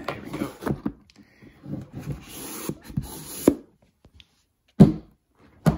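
A thick disc book being slid back into a cardboard box-set case, with rubbing and scraping of card on card. A knock about three and a half seconds in, then two sharp thumps near the end as the box is shut and handled.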